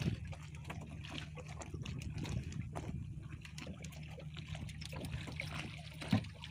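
Water lapping against the hull of a small open boat over a low steady rumble, with soft knocks at the start and again about six seconds in.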